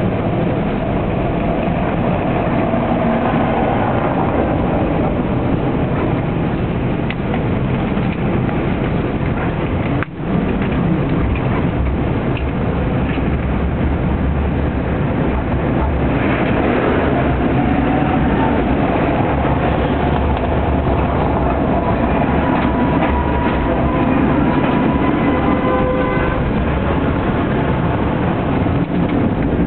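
Tram running, heard from inside the car: a steady rumble of wheels on the rails, with a faint whine that rises in pitch through the second half.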